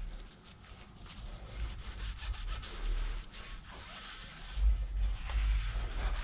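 Hand rubbing and scrubbing along the inside of a rusty spoked motorcycle rim, an irregular scratchy sound of short strokes, cleaning it before a new rim strip goes on. A dull low bump about two-thirds of the way through.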